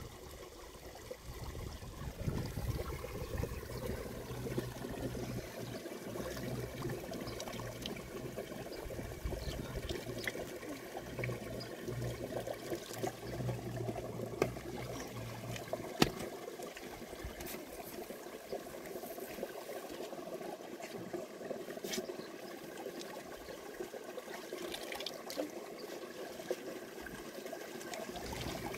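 Water running and trickling steadily, with a few sharp knocks around the middle. A low hum underneath cuts off about halfway through.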